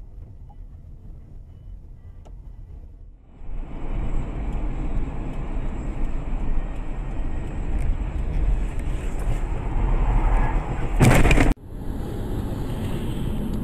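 Car interior road and engine rumble from a dashcam, changing abruptly twice as the clips change: quieter at first, then louder, and steady again near the end. A loud burst of noise about half a second long comes just before the last change.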